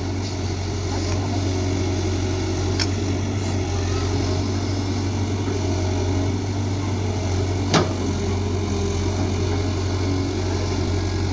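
Excavator's diesel engine running steadily, with a few sharp knocks, the loudest about two-thirds of the way through.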